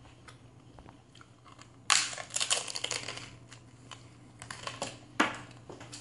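Biting into a thick, microwave-crisped white corn tortilla taco shell: a sharp loud crunch about two seconds in, then a run of crackling crunches as it breaks up and is chewed, with another sharp crunch about five seconds in.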